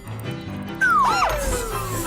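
Background music with a cartoon sound effect: from about a second in, a pitched sound glides steadily down, with a short quick rise and fall alongside it.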